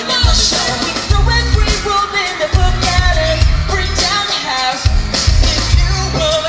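Live pop music: male group vocals singing over a band and backing track with a heavy, pulsing bass beat.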